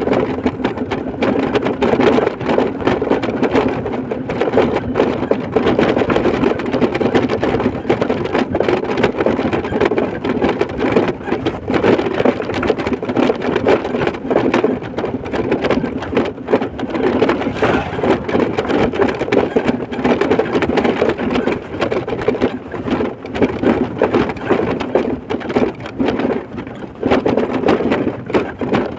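Steady road and engine noise of a moving vehicle, with a fast, continuous rattling clatter.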